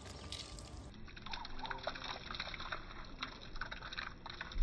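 Water poured from a small bottle over a potted sapling, trickling and splashing irregularly onto the plant and soil.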